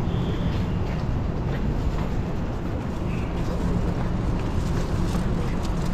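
Railway station concourse ambience: a steady low hum over a constant background rumble.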